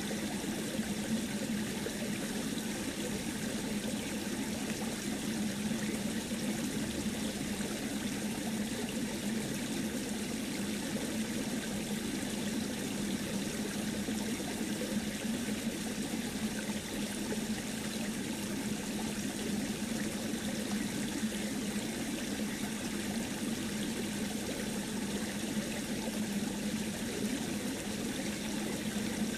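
Steady running, trickling water, like a small stream, with an even level and no breaks.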